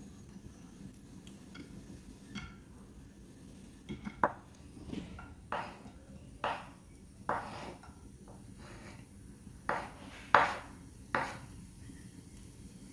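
A cooking utensil clinking and scraping against a frying pan in a string of short strikes, roughly one a second, starting about four seconds in, while onions are worked in hot oil.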